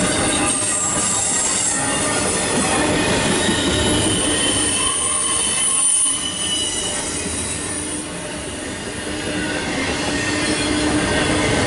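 Double-stack container and trailer cars of an intermodal freight train rolling past close by: steel wheels rumbling on the rails with a thin high wheel squeal running through it. The sound eases a little past halfway and builds again near the end.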